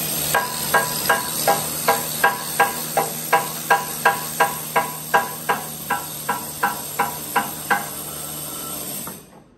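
Evenly spaced metallic strikes, a little under three a second, each with a short ring, as a tool hammers on the steel hull of an Abbott self-propelled gun; they stop about eight seconds in, over a steady hiss that cuts off just before the end.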